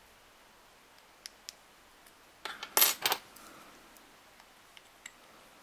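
Light metal clicks and a brief clatter of small metal clinks about two and a half seconds in, from a small screwdriver being handled and set to the brake plate screws of a Daiwa 7HT Mag baitcasting reel.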